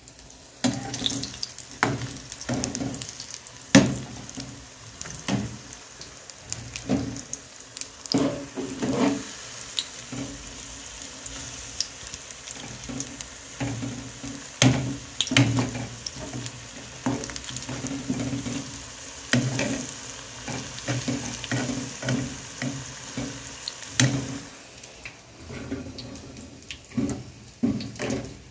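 Pakoras sizzling as they fry in hot ghee in a small metal pan, with a metal spatula knocking and scraping against the pan now and then.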